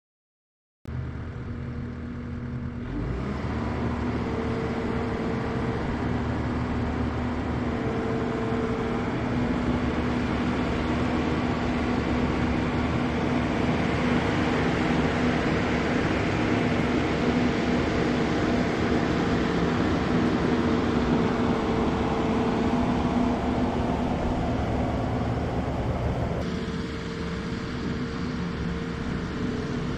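Diesel engine of a Takeuchi compact track loader running steadily. It comes in about a second in and revs up soon after.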